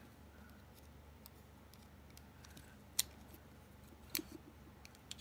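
A few sharp, small metallic clicks from a hand driver and small knife parts being handled during work on a folding knife's pivot: one about three seconds in, one a second later and one near the end, over a faint steady hum.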